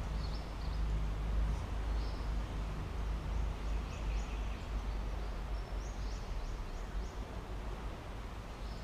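Outdoor ambience: small birds chirping in short high calls, some in quick runs of several, over a steady low rumble.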